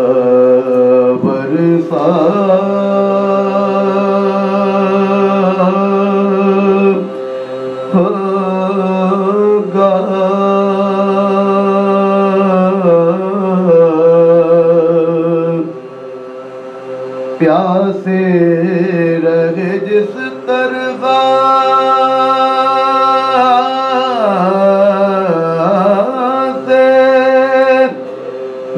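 Soz: men's voices chanting a mournful elegy together, unaccompanied, in long held, wavering notes, with short pauses between phrases.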